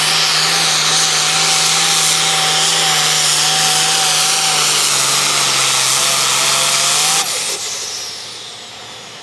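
International Harvester turbocharged diesel super farm pulling tractor running flat out under load while pulling the sled, a loud, steady engine note. About seven seconds in, the sound drops off sharply as the engine is shut down at the end of the pull, and a high whine falls away as it winds down.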